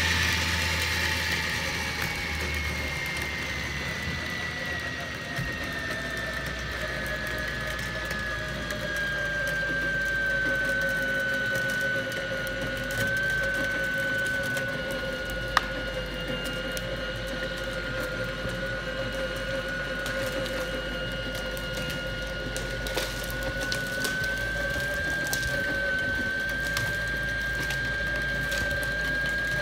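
Cable winch motor whining steadily while it works a taut steel cable. Its pitch slides down over the first several seconds, holds, then rises a little near the end, with one sharp click about halfway.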